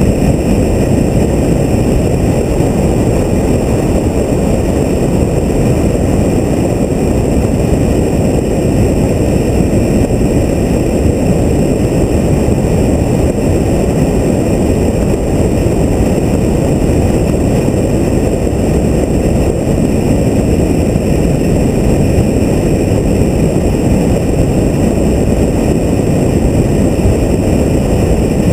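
Car driving at road speed, heard through a GoPro mounted on the hood: a loud, steady rush of wind and road noise.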